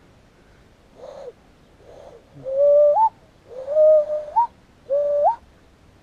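Cupped-hand whistle blown by a person, sounding like a dove's coo. A faint breathy try comes about a second in, then three whistled notes, each held steady and then jumping up in pitch at its end.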